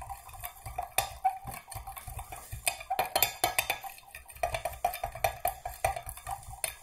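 A wooden stick stirring melted soft plastic in a measuring jug, knocking and scraping against the jug's sides in quick, irregular clicks.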